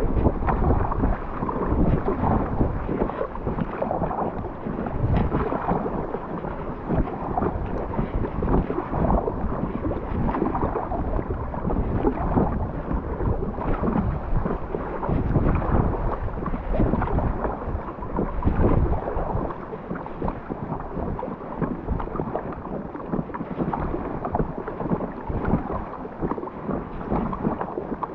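Strong wind buffeting the microphone in a low, gusting rumble, with water splashing around a kayak.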